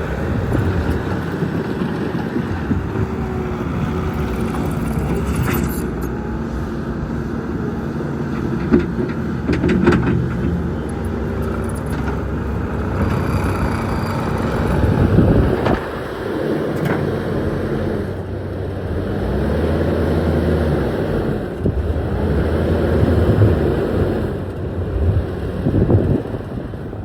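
Bobcat T770 tracked skid steer running while being operated: its diesel engine speed rises and falls repeatedly under hydraulic load, with a few sharp clanks.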